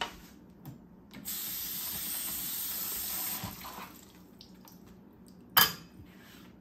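Kitchen tap running for about two seconds, starting a second in and trailing off, then a single sharp clack near the end.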